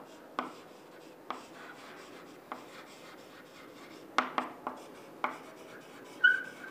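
Chalk writing on a blackboard: a series of sharp, irregular taps as the chalk strikes the board, between soft scratching strokes, with a short squeak near the end.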